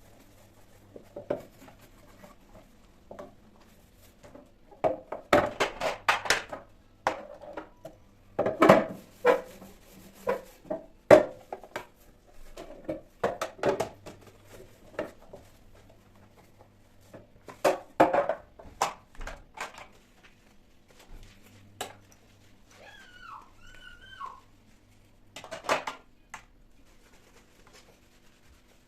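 Dishes and kitchen containers clinking and knocking as they are handled, in irregular clusters of clatter. A short wavering squeak comes near the end.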